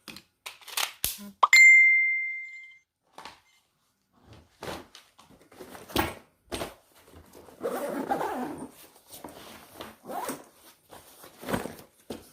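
Everyday-carry gear being handled and packed: scattered clicks and knocks, and a rustle near the middle. About a second and a half in, a metal item strikes something and rings on one clear tone for about a second.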